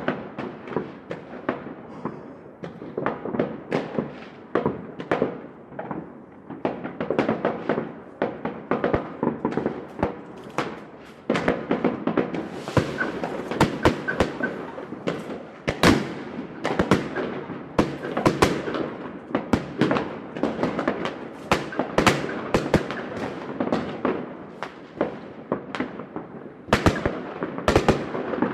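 Fireworks going off in a dense, irregular barrage of sharp bangs and pops, several a second. A steady hissing crackle grows louder about eleven seconds in.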